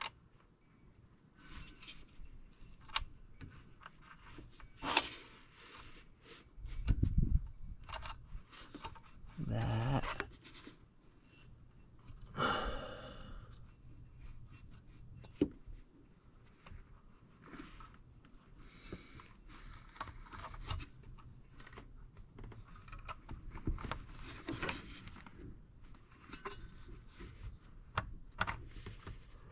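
Close handling noises of hands working on a snowmobile engine's spark plug and plug cap: scattered small clicks, scrapes and rustles, with breathing near the microphone. A few louder scrapes and knocks fall in the first half.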